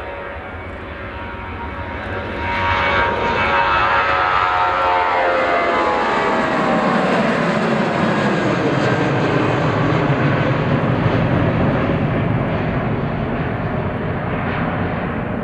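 Boeing 737-800's CFM56-7B jet engines at takeoff power as the airliner goes past: loud jet noise that swells about two and a half seconds in, with a set of whining tones gliding down in pitch as it passes, then slowly easing off near the end.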